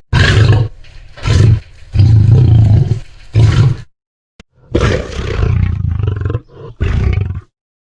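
Lion roaring: four deep roars, then after a short silence a second run of two longer roars.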